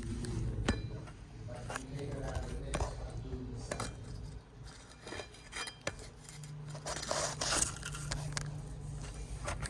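Scattered metallic clicks, clinks and knocks of hand tools and burner parts being handled, with a steady low hum coming in about two-thirds of the way through.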